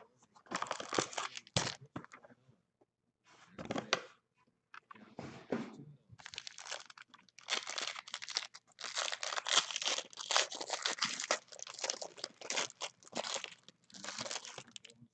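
Trading card pack being torn open and its plastic wrapping crinkled, with the cards then handled and shuffled: a few short bursts of crackling, then nearly continuous rustling and crinkling for most of the rest.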